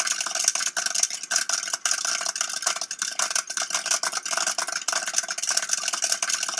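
Popcorn kernels popping in hot oil inside a lidded copper pot: many sharp, uneven pops over a steady sizzle.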